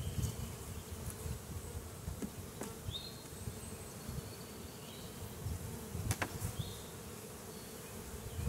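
Honeybee colony buzzing steadily over an open hive box, a calm hum from well-behaved bees. Two sharp clicks sound about two and a half and six seconds in.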